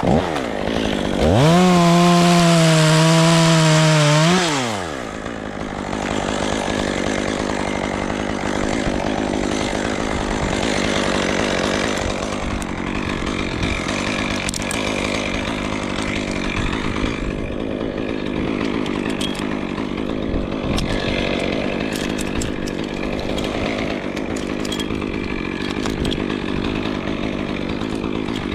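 Chainsaw revved to full throttle about a second in, held high for about three seconds, then let back down to a steady idle that runs on.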